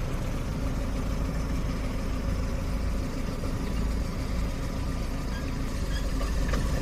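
Toy car driving over gravelly dirt: a steady rumble of its small motor and plastic wheels rolling on the ground.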